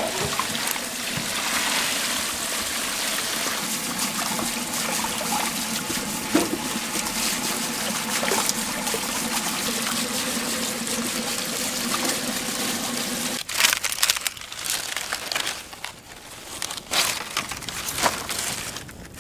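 Steady running and splashing water as peeled prawns are rinsed by hand in a metal pot of water. About thirteen seconds in, this cuts off abruptly and a fire of dried palm fronds and sticks crackles and snaps.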